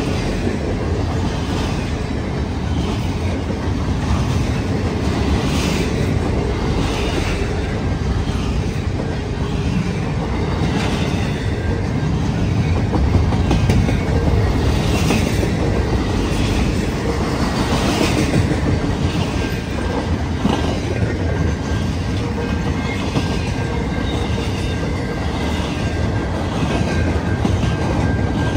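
Freight train cars rolling past at close range: a steady rumble with repeated clicking of wheels over rail joints. A thin steady squeal joins in about two-thirds of the way through.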